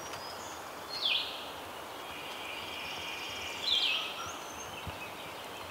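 Small birds singing in the woods: a loud, quick falling phrase about a second in and again near four seconds, with fainter high chirps between, over a steady outdoor hiss.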